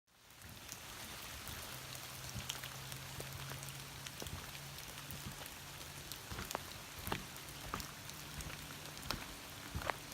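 Steady rain falling, with many scattered drops ticking sharply, over a faint low hum; the sound starts suddenly.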